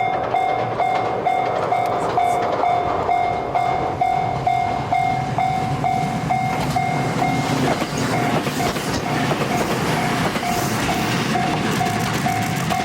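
Japanese level-crossing warning bell ringing a steady electronic ding about twice a second. From about halfway the rumble and wheel clatter of a JR West 227 series electric train grow as it comes up to the crossing.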